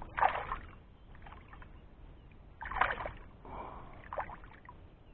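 A few short splashes of shallow water as a hand reaches in after a hooked largemouth bass, two of them louder than the rest.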